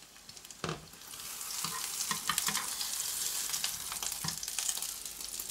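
Mushroom omelette sizzling in hot oil in a nonstick frying pan, the crackling growing louder from about a second in as a spatula lifts and folds it over. A single knock sounds just before, under a second in.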